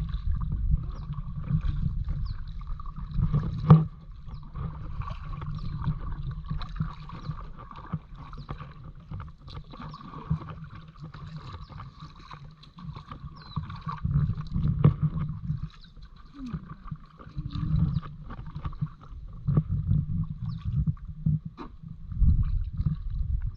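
Kayak paddling: paddle strokes dipping and splashing in the water, over an uneven low rumble. A sharp knock, like a paddle striking the hull, comes about four seconds in.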